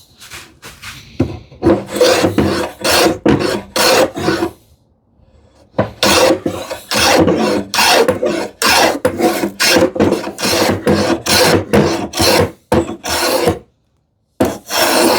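Scrub plane cutting across a wooden drawer front in quick, short rasping strokes, roughly two a second, taking heavy cuts against the grain. The strokes pause briefly about five seconds in and again near the end.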